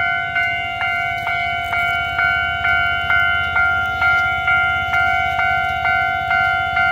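Railway level-crossing warning bell ringing, a repeated ding a little over twice a second, each strike ringing on into the next: the signal that a train is approaching the crossing.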